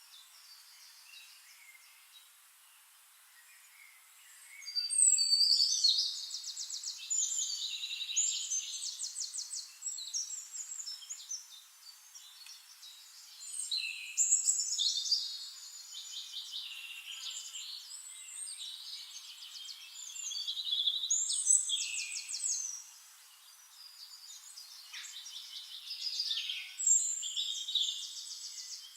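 Bird song: high, fast trills and chirps. After about four quiet seconds, a loud phrase comes every several seconds, with softer twittering between.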